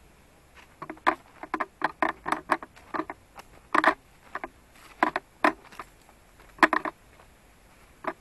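Footsteps crunching and rustling on a path covered in dry fallen leaves, in irregular clusters of short crackles with brief pauses between them.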